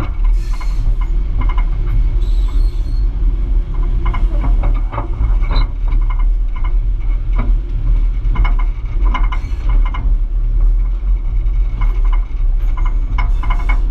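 South Australian Railways 800-class diesel-electric locomotive 801 running slowly along yard track. Its engine gives a steady low rumble, with irregular clanks and clicks from the wheels, rails and couplings.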